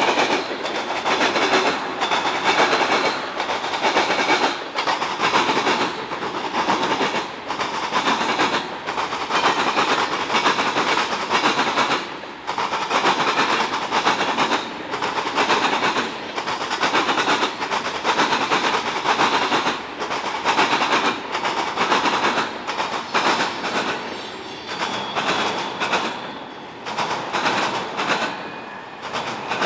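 Freight cars rolling across a railroad diamond crossing, their wheels pounding over the crossing with a steady, rhythmic clatter of loud clacks under a continuous rumble of rolling wheels.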